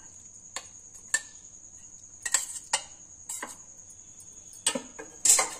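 A metal spoon clinking and scraping against a steel bowl and a glass mixing bowl as curd is scooped out, in about seven separate clinks with the loudest near the end, over a steady high-pitched whine.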